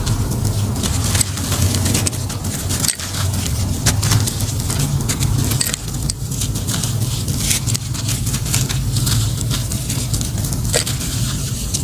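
Gritty charcoal shapes being squeezed and crumbled by hand, with many small crunches and crackles as the grains break and fall. A steady low rumble runs underneath.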